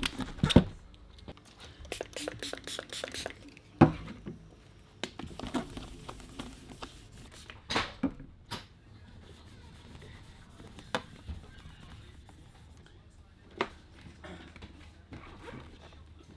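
A Shoei motorcycle helmet being handled and cleaned on a table: sharp knocks and clicks as it is set down and turned over, a quick run of clicks about two seconds in, and cloth rubbing over the shell between them.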